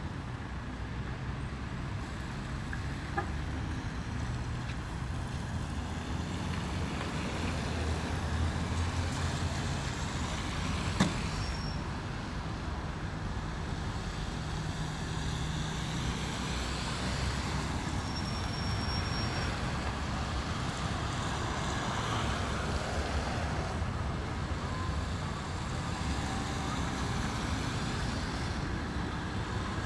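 Road traffic: vehicle engines running steadily at low speed, with one sharp knock about eleven seconds in.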